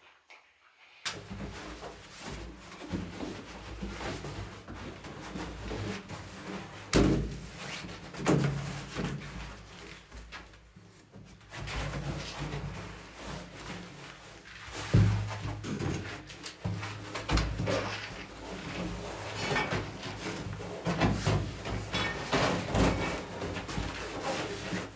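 Background music over occasional knocks and thuds, the loudest about 7, 15 and 17 seconds in.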